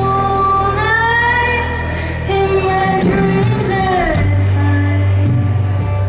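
Live band music: a woman singing long held notes over strummed acoustic guitar and electric bass, her voice sliding down at the end of a phrase about four seconds in.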